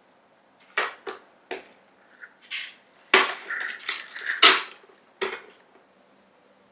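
A kitten pawing and biting at a plastic slicker grooming brush, the brush scraping and clattering on a hard floor in a series of short bursts, busiest in the second half.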